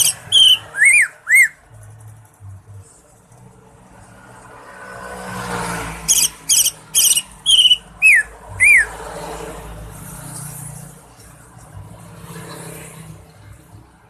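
Cucak ijo (greater green leafbird) singing two loud phrases, each a quick run of sharp high notes followed by a few slurred, arching whistles. A low rushing noise swells and fades between the phrases.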